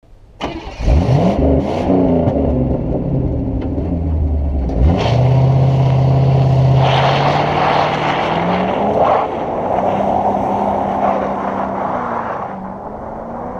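A car or truck engine revving: its pitch climbs about a second in, drops near five seconds, then holds at a fairly steady speed with a few small rises and falls.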